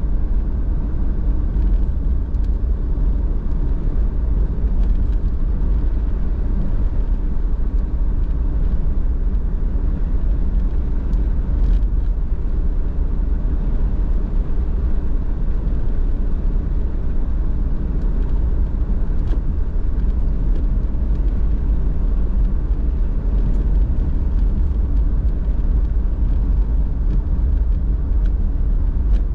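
Car driving at a steady pace: a constant low rumble of engine and road noise.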